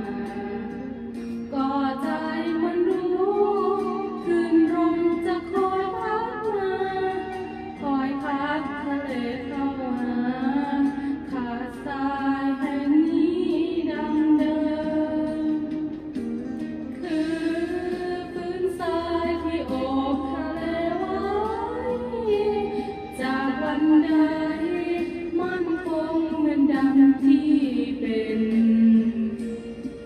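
A woman singing a slow Thai song solo into a handheld microphone, in long held notes that waver in pitch.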